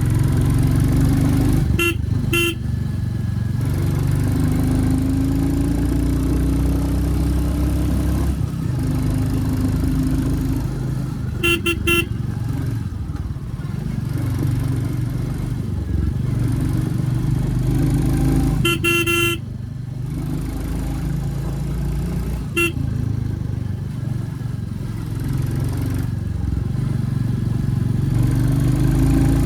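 Royal Enfield Classic 350's single-cylinder engine and exhaust running as the bike is ridden, its pitch rising and falling with the throttle. A horn gives short beeps in four brief groups through the stretch.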